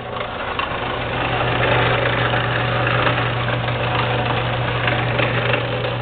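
JET 15-inch bench drill press running under power with its belt cover open: the electric motor and belt-and-pulley drive make a steady hum, with no change in speed.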